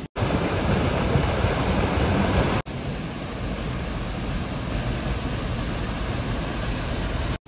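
Waterfall water pouring and splashing, a steady rush of noise. It cuts out for an instant twice, near the start and about a third of the way in, where the footage is edited.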